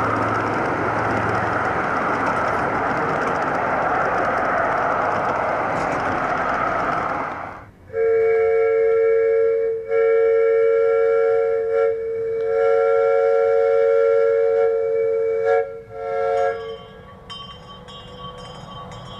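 Live steam locomotive UP-828 at first running with a steady rushing hiss. About eight seconds in, its chime whistle sounds a chord of several notes in four blasts: two of about two seconds, a longer third, and a short last one.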